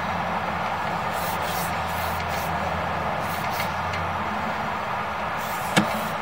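Sewer inspection camera's push cable being pulled back by hand, over a steady machine hum that drops away about four seconds in. There are several short hissing sweeps and one sharp click near the end.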